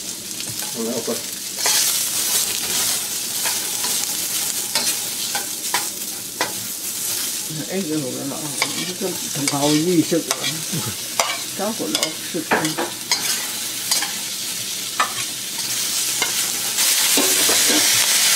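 Vegetables sizzling in hot oil in a wok, with a metal wok spatula scraping and clicking against the pan as they are stirred. The sizzle grows louder near the end as more vegetables go into the oil.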